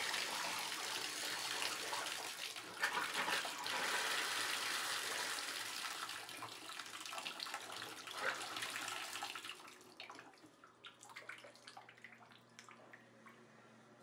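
Water pouring from a bathtub spout into the tub, a steady splashing rush, during a test of a newly replaced Moen shower valve cartridge. The rush dies down about ten seconds in, leaving only faint scattered knocks.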